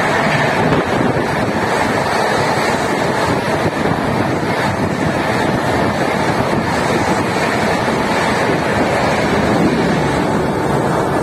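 Express train's LHB passenger coaches rushing past at high speed, close by: a steady, loud roar of air and wheels on rail with no let-up.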